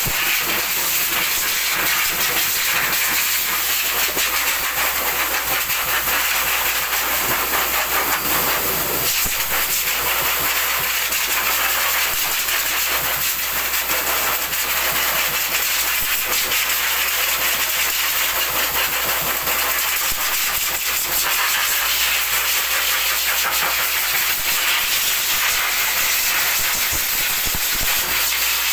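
Pet grooming blower dryer running, a steady rush of air from its hose as it is played over a dog's coat.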